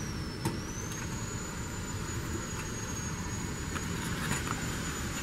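Steady machinery running, with a constant high-pitched whine that sags briefly in pitch near the start and comes back, and a single sharp click about half a second in.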